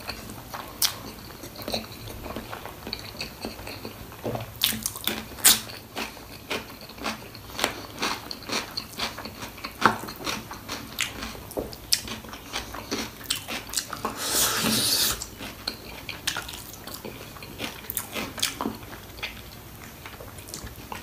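A person chewing and biting into mutton paya (goat trotters) with rice: irregular wet clicks, crunches and smacks. About two-thirds of the way through there is a louder, noisier sound that lasts about a second.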